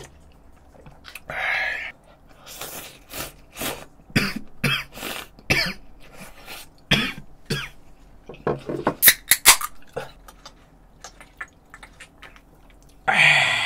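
A man slurping hot noodle broth, sipping from a cup and then a small bowl in a run of short, sharp slurps, with a longer breathy sound near the end as he drinks from a can.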